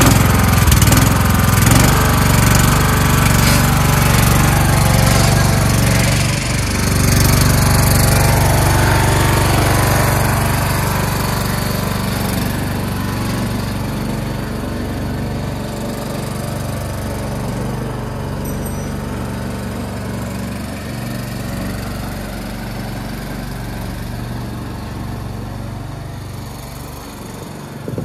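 Engine of a Craftsman LT1000 lawn tractor running steadily as the tractor drives off, loud at first and then slowly fading with distance.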